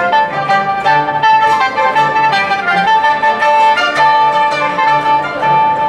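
Chinese traditional instrument ensemble playing a tune: bowed erhu carrying a held melody over plucked pipa and guzheng, with a regular low beat in the bass.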